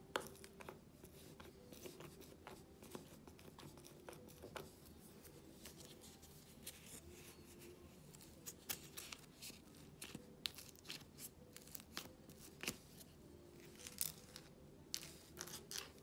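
Soft air-dry clay being poked and pressed with a plastic ball-tipped sculpting tool in a clear tub: a quiet run of small clicks and pops, coming more often in the second half.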